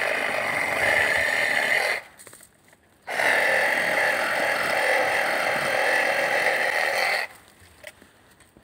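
Small cordless reciprocating saw cutting a tree branch. The blade buzzes steadily for about two seconds, stops briefly, then runs for about four seconds more and cuts out sharply.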